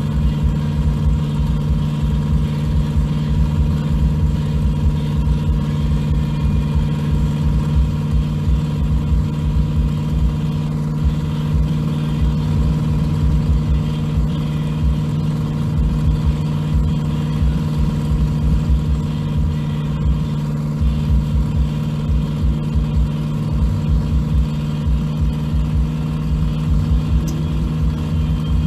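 Engine and exhaust of a 1500-horsepower Chevrolet S10 street truck cruising at a steady speed, heard from inside the cab: an even drone that holds one pitch, with an uneven low rumble underneath.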